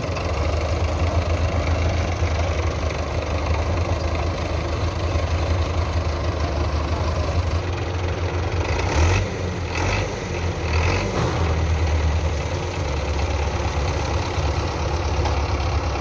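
Belarus 510 tractors' diesel engines running steadily side by side, with a short louder burst of noise about nine seconds in.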